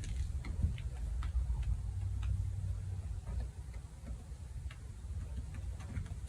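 Light irregular clicks and taps, a few a second, over a steady low rumble.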